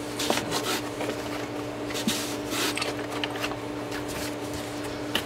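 Hands arranging parts and wiring in a foam-lined cardboard box: irregular rubbing, rustling and scraping handling sounds over a steady background hum.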